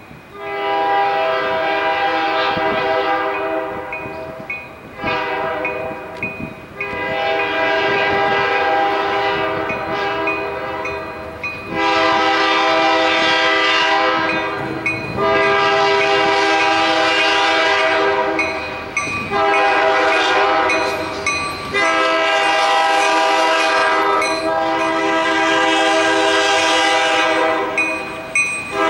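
Locomotive air horn on GP40X 4056 blowing a string of long blasts with brief gaps, each a loud chord of several tones, sounded as the train approaches grade crossings.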